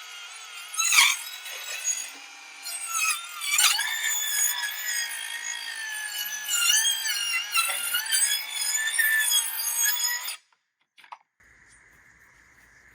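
Power saw cutting, with a high-pitched screeching ring that wavers in pitch. It cuts off abruptly about ten seconds in, followed by a single click and a faint steady hum.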